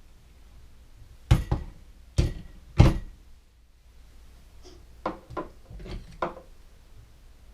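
Hard plastic clunks and knocks from handling the blender's container and lid: three loud knocks in the first three seconds, then four lighter clicks.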